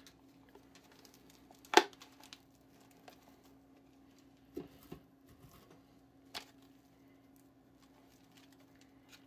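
Hands handling a thin clear plastic mold packed with sticky puffed-rice treat mixture: soft crackly rustling with scattered clicks of the plastic, the loudest a sharp snap about two seconds in. A faint steady hum runs underneath.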